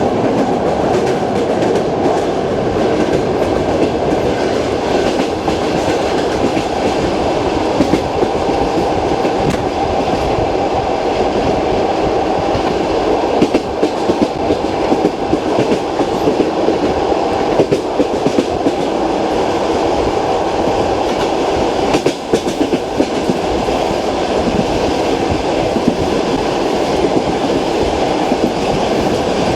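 Passenger train running at speed on jointed track, heard from inside the carriage: a steady rumble with the rhythmic clickety-clack of the wheels striking the rail joints, a few sharper knocks about halfway through.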